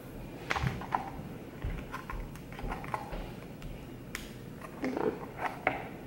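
Quiet handling sounds: scattered light clicks and crackles of a small plastic tub being turned over in the hands.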